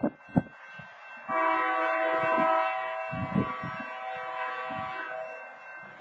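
A railroad horn chord: one long multi-note blast that starts abruptly about a second in and fades away over the next four seconds. Irregular low thumps sound under it.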